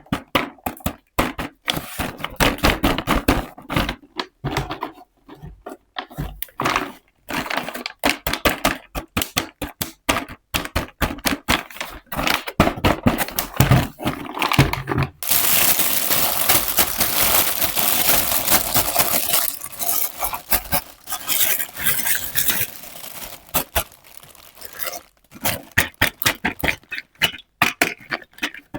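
Unboxing a miniature toy kitchen set: many small taps and clicks of plastic and metal pieces being handled. From about halfway through there is a long stretch of crinkling and tearing of packaging, then scattered clicks again.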